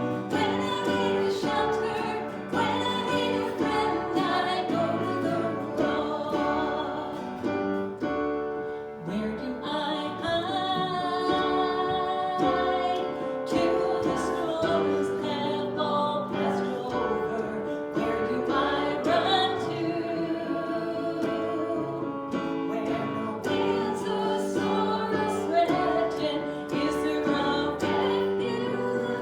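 A worship song: voices singing with guitar accompaniment.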